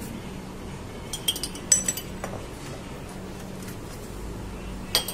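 Ice cubes going into an empty glass jar, clinking against the glass a few times, with the loudest clink a little under two seconds in and a couple more near the end.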